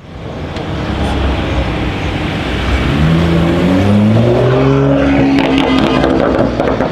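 Tuned BMW M2's turbocharged inline-six accelerating past, its exhaust note climbing in pitch from about halfway through. A quick run of exhaust crackles comes near the end.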